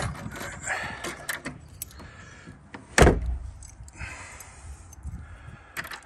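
A door being closed onto a newly fitted nightlatch and tried with its key: scattered key and latch clicks, with the door shutting in one loud bang about three seconds in.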